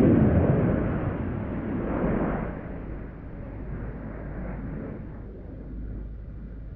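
Jet noise of a Dassault Rafale's twin Snecma M88 turbofans as the fighter climbs away: loud at first, a brief swell about two seconds in, then fading steadily into a distant rumble.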